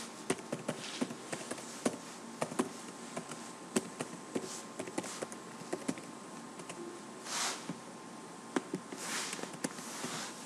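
Typing on a computer keyboard: irregular soft key clicks, with two brief soft hisses in the second half.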